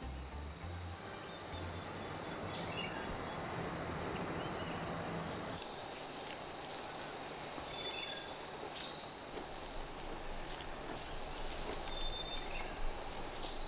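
Outdoor insect ambience: a steady high-pitched insect drone over a soft hiss, with short high chirps three times, about every five or six seconds. Low music notes underneath stop about five and a half seconds in.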